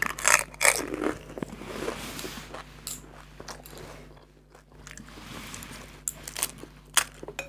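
Crisp fuchka (pani puri) shell, filled and dipped in spiced water, cracking as it is bitten whole, followed by wet crunching and chewing. The sharpest cracks come in the first second, with a few more later.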